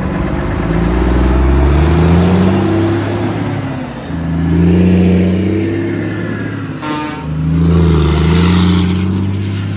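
Volvo FH 500 truck's 13-litre six-cylinder diesel pulling loaded through an aftermarket exhaust. The deep engine note rises three times, with dips in between.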